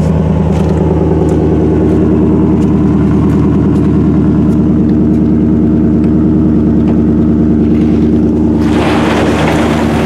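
Chevrolet Silverado pickup's engine running steadily. About nine seconds in, a rushing noise joins it.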